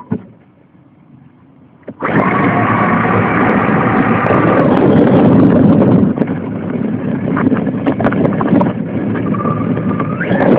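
RC car driving, heard from a phone mounted on the car: a loud rumble of drive and wind noise that starts about two seconds in, with a faint motor whine that rises in pitch near the end.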